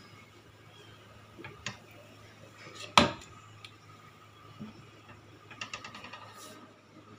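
Kitchen clatter of cookware being handled: one sharp knock about three seconds in, a few lighter clicks before it, and a quick run of small ticks near the end, over a low steady hum.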